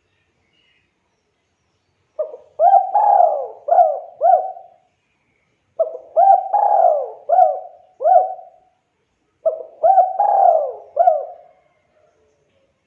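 Spotted dove (tekukur) cooing: three phrases of several quick coos each, a few seconds apart.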